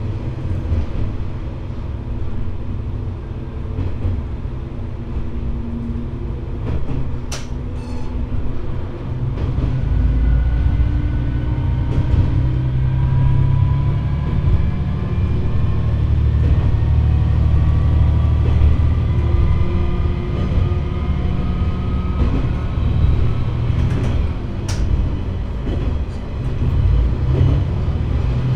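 KiHa 120 diesel railcar running, heard from on board: a heavy engine drone that grows louder about ten seconds in, with a whine that slowly climbs in pitch, and two sharp clicks.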